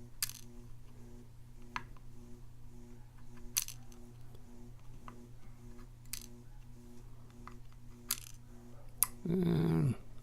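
Lock pins and springs being taken out of a padlock's core one by one, each landing on a hard surface with a sharp metallic click, about six clicks spaced a second or two apart. A brief murmur of voice near the end, over a steady low background hum.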